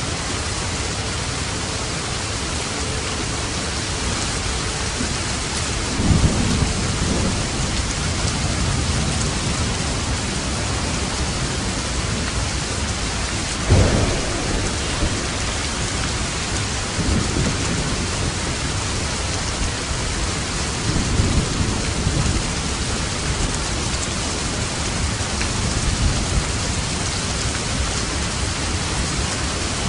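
Steady heavy rain drumming on a roof, with thunder rumbling several times; the sharpest clap comes about halfway through.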